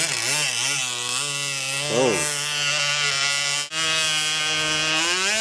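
Electric radio-controlled speedboat's motor whining at speed, its pitch rising and falling with the throttle. There is a quick rise and fall in pitch about two seconds in and a momentary cut-out later on.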